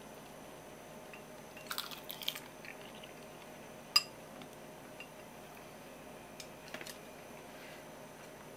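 Quiet eating and tableware sounds: soft crackling as a nori-wrapped bite of tuna and rice is eaten, then one sharp porcelain clink about four seconds in, followed by a few faint taps.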